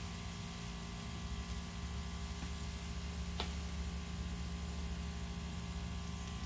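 A steady hum with a constant hiss, growing fuller and lower about two seconds in, and a single sharp click about three and a half seconds in.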